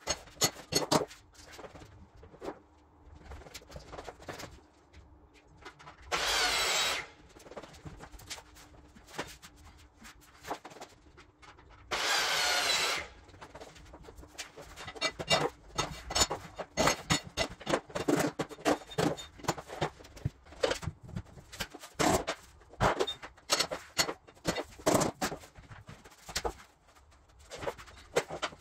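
Repeated knocks and taps of tools on vinyl plank flooring during installation, with two short bursts of a small power tool, about six and twelve seconds in.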